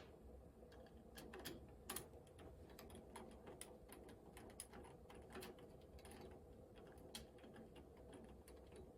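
Faint, irregular small metal clicks and taps, roughly one or two a second: mounting screws being fitted and started with a hand screwdriver into a door lever set's plates.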